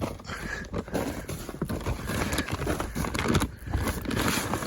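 Compost and pelleted chicken manure being mixed by hand inside a potato grow bag: irregular rustling and crackling of the bag and compost.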